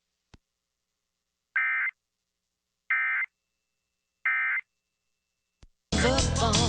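Three short bursts of EAS SAME digital data tones, each a fraction of a second long and about 1.3 s apart. Their shortness fits the End of Message burst that closes a weather radio warning. Loud music cuts in abruptly near the end.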